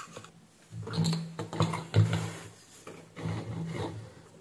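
Bench handling noise: a few clicks, knocks and rubbing as a switching power supply's circuit board and tools are moved about on a rubber work mat, in two short spells.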